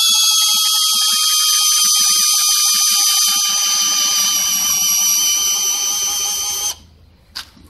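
Cordless drill driver in drill mode, first (low-speed) gear, cranking a scissor jack. Its motor whine falls slowly in pitch as the jack lifts the car, with a low grinding rumble growing in about halfway. It cuts off suddenly about a second before the end, followed by a single click.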